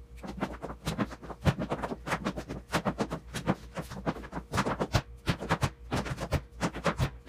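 Flamenco dance shoes striking a wooden floor: sharp, irregular stamps and taps, several a second, with no music. A faint steady hum runs underneath.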